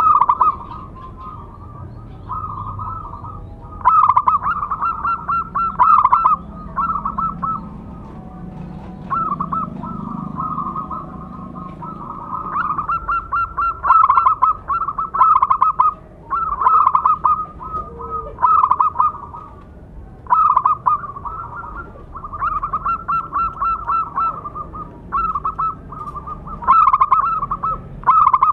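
Zebra dove (perkutut) cooing: repeated short phrases of rapid, rolling coo notes, one after another with brief pauses between them.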